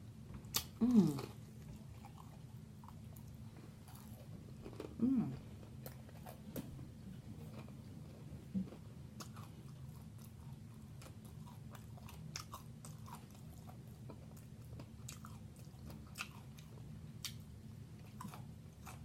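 A person chewing food close to the microphone, with scattered wet mouth clicks and smacks throughout. Two short low vocal sounds with a falling pitch come about a second in and about five seconds in.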